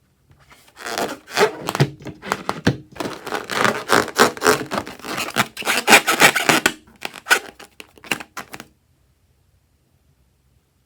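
Close-up crackling, rubbing and squishing sounds as slime is handled, starting just after a second in and stopping suddenly near the end.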